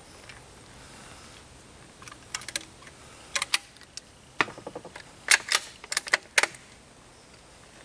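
Sharp clicks and clacks from handling the Savage Mark II rifle between shots, coming singly and in quick clusters of two or three over about four seconds.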